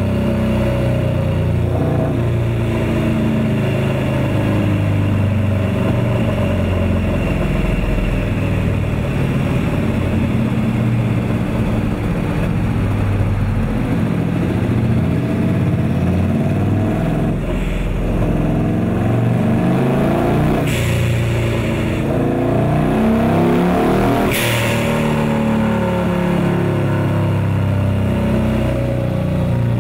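Turbocharged Harley-Davidson V-Rod's 1250 cc Revolution V-twin running hard on a dyno, its revs rising and falling as road speed changes. Two short sharp bursts of noise cut through about two-thirds of the way in and again a few seconds later.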